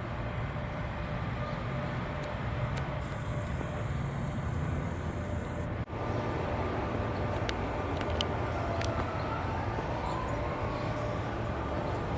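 Steady outdoor background noise with a low rumble, typical of road traffic, briefly cut off about six seconds in.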